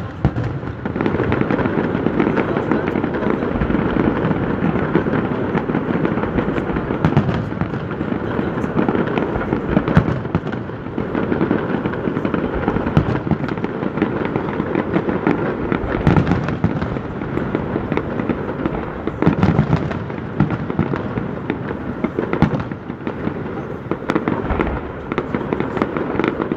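Large aerial fireworks display: a dense, continuous barrage of shell bursts and crackling, with sharper bangs standing out now and then.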